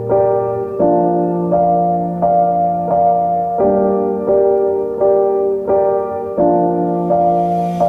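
Background music played on a keyboard: sustained chords, a new one struck about every 0.7 seconds in a steady pulse.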